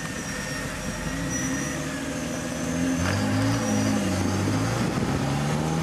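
Custom Land Rover Discovery's 4.2 V8 on a straight exhaust, running and being revved, its note rising and falling with a jump in level about three seconds in. A steady faint high whine runs over it.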